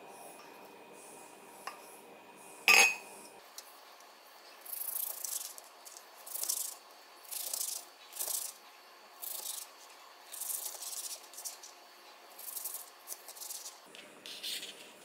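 A sharp knock about three seconds in, then a chef's knife slicing through kimbap rolls wrapped in dried seaweed: a short crisp rasp with each cut, about one a second.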